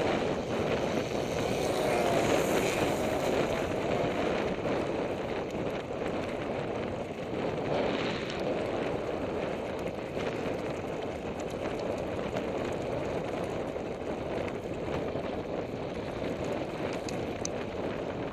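Mountain bike rolling along a gravel track: a steady crunch of the tyres on loose stones, with small clicks and rattles from the bike throughout.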